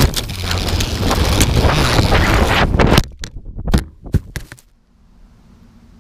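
Multirotor drone's motors and propellers buzzing loudly in flight, cutting out about three seconds in as it goes down, followed by several sharp knocks as it hits and tumbles on the ground: a crash. A faint low hum remains afterwards.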